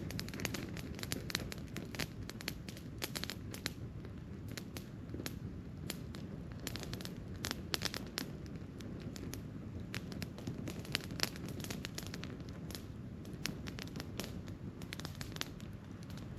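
Wood campfire burning, with frequent sharp irregular crackles and pops over a low steady rumble of the flames.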